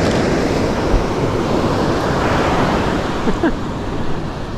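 Ocean surf breaking and washing up the beach in a steady rush, with some wind noise on the microphone.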